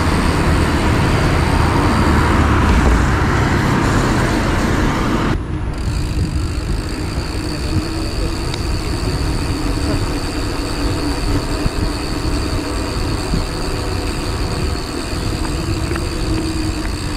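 Wind rumble and tyre noise from a mountain bike ride on a paved path, with road traffic alongside. About five seconds in it drops suddenly to a quieter, steady ride noise with a faint steady high tone.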